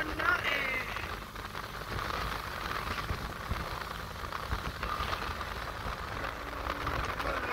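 Steady road and engine noise heard from inside a moving car's cabin, a low even rumble and hiss.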